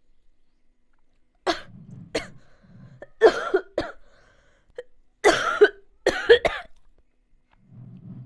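A person coughing repeatedly: a run of sharp, hacking coughs in three bouts that starts about a second and a half in, with the loudest coughs in the middle of the run.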